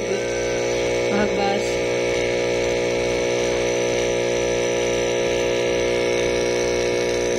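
Steady electrical hum, thick with evenly spaced overtones and holding the same pitch throughout.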